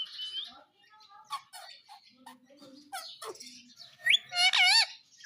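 Pet parrot making soft clicks and short chirps, then about four seconds in a rising whistle and a loud wavering, warbling call.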